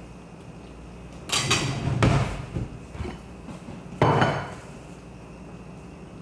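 Metal kitchen utensils clattering as they are picked through in an open drawer, then heavier knocks, the loudest about four seconds in, as the drawer is shut.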